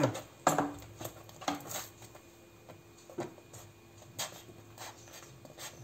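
Wooden spoon stirring thick béchamel in a stainless steel pot, knocking and scraping against the pot's side now and then in a few light, irregular knocks, over a faint steady hum.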